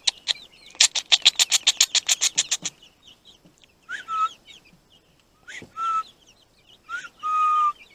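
Young chicks peeping softly throughout, with three louder calls about four, six and seven seconds in that each rise and then hold a steady note, the last one longest. About a second in comes a quick run of sharp ticks, about eight a second for two seconds.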